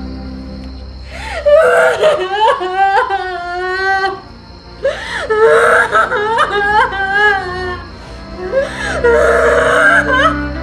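A woman wailing and sobbing in three long, anguished bouts, her voice rising and breaking, over a low sustained music score.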